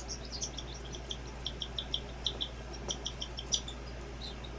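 Baby cockatiel making short, high, squeaky chirps, repeated irregularly a few times a second and dying away near the end: begging calls of a chick being hand-fed.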